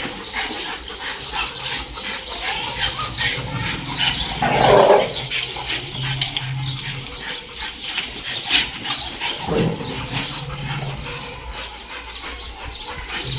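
Dogs moving about and making dog sounds, with one louder dog sound about four and a half seconds in and a shorter one near nine and a half seconds.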